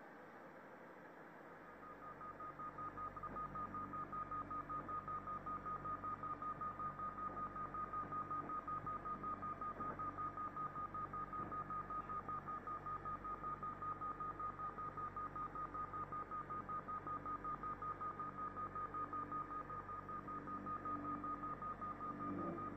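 Electronic drone: a steady high-pitched tone over a low hum, pulsing evenly a few times a second, which swells in about two seconds in.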